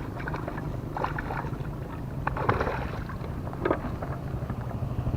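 Engine running steadily with a low hum, growing louder near the end, with a few short sharp sounds over it.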